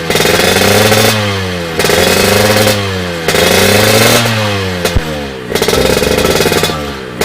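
Yamaha RX-King's 135 cc two-stroke single-cylinder engine revved through an SMR Super Pro 91 stainless aftermarket exhaust: about four throttle blips, each rising in pitch and falling back. There is a sharp click about five seconds in.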